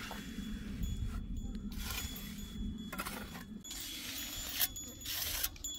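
Repeated gritty scraping strokes of a hand tool, roughly one a second, over a low steady hum that stops a little past halfway.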